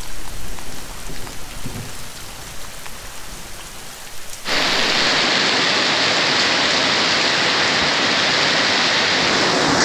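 Rain falling, light at first with scattered ticks of drops. About halfway through it switches abruptly to the loud, steady hiss of a heavy downpour.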